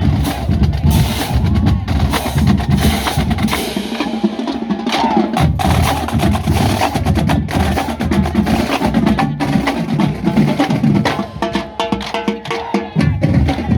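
College marching band drumline playing a dense, fast cadence on snare and bass drums. The low bass-drum part drops out briefly about four seconds in and again near the end.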